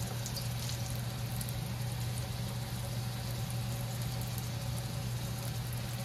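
Batter-coated green chillies deep-frying in hot oil in a wok: a steady sizzle with fine crackles, over a steady low hum.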